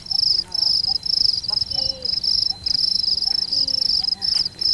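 Insects, crickets or similar, chirping in a fast steady rhythm of short high-pitched pulses, about three a second, over a thin continuous high whine.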